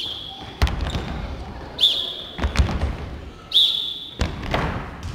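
Basketballs bouncing on a hardwood gym floor in a few sharp thuds. Four short high squeaks come at even intervals of about a second and a half to two seconds.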